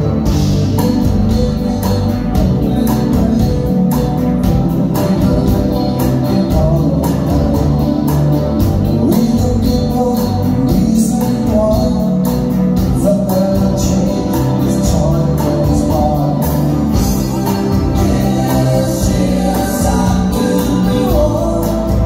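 Live band playing a song: a man singing lead over electric guitar, keyboards and drums keeping a steady beat.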